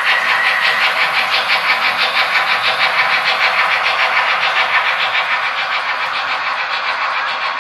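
Steam locomotive chuffing in a fast, even rhythm of about six beats a second, with a brief high steady tone at the start.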